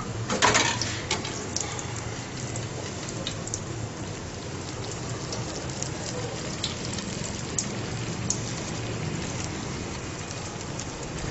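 Malpua batter deep-frying in hot ghee, a steady sizzle with scattered pops and crackles. It is briefly louder about half a second in.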